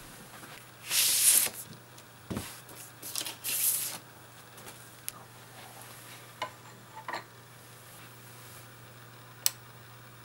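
A vinyl record being handled: a few bursts of rustling and sliding as the disc is taken out and moved, a soft thud, then light clicks as it is set on the turntable platter. One sharp click comes near the end, under a faint steady low hum.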